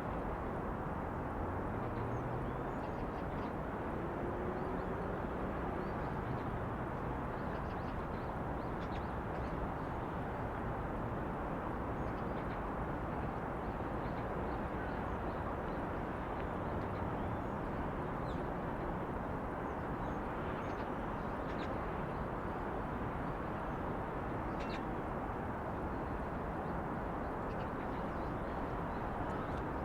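Steady city background noise on Namsan, Seoul: an even rumble and hiss of distant traffic, with faint short high chirps scattered throughout.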